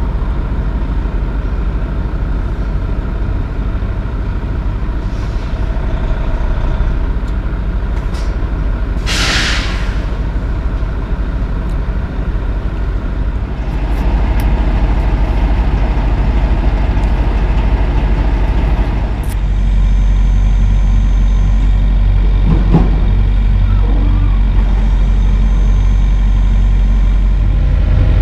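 Kenworth W900 semi truck's diesel engine running at low speed, with a short sharp hiss from its air brakes about nine seconds in. From about two-thirds of the way through it idles close by, louder and steady.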